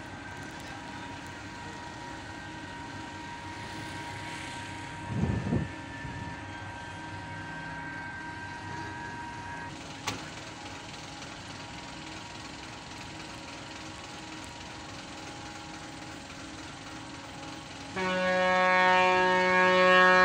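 Steady hum of ship machinery from a large ro-ro ferry coming in to berth, with a short low rumble about five seconds in. Near the end a loud horn sounds for about two seconds.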